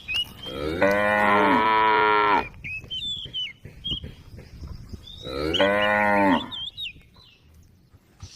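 A cow mooing twice: a long moo of nearly two seconds, then a shorter one a few seconds later.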